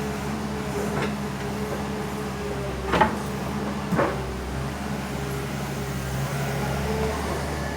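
Backhoe's diesel engine running steadily, with three sharp knocks about a second, three seconds and four seconds in, the middle one the loudest.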